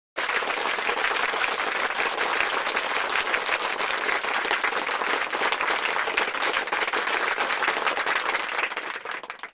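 Crowd applause, many hands clapping densely. It starts abruptly and fades out near the end.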